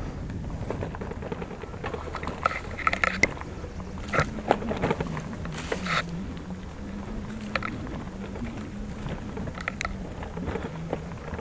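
Bicycle rattling and clicking as it rides over a rough, rutted dirt track, with a few sharper knocks from bumps between about two and six seconds in, over a steady low hum.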